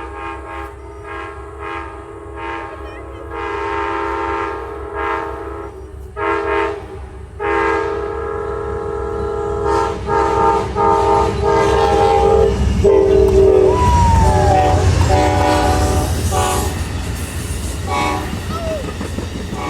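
Amtrak passenger train's multi-chime air horn sounding a long series of blasts, some held for a couple of seconds and some short, played as a horn show. From about halfway through, the rumble of the train passing close on the rails swells up beneath the horn.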